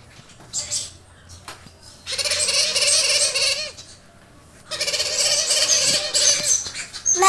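Blue-headed parrot chicks, about a month old, giving harsh, rapidly pulsed begging calls. There is a short call near the start, then two long runs of a second or two each, the first about two seconds in and the second from about five seconds in.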